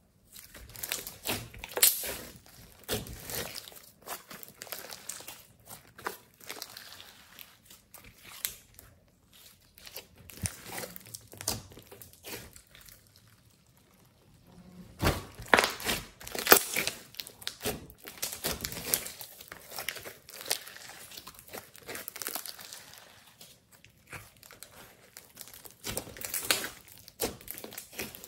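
Glossy slime being kneaded, stretched and pressed by hand, making irregular sticky crackles and pops in clusters, with a quieter spell about halfway through while it is pulled out slowly.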